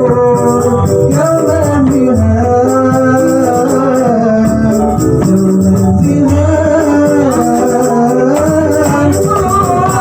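Sholawat devotional music: a sung melody with long, gliding held notes over hadrah percussion with rattling jingles.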